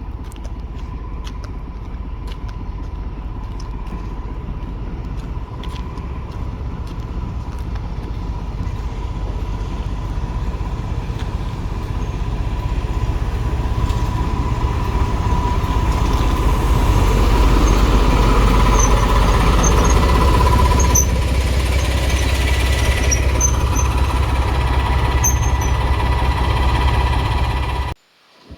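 Heritage railway train running: a steady low rumble that grows louder and peaks about two-thirds of the way in, with a steady high tone and brief high squeaks over it. It cuts off suddenly near the end.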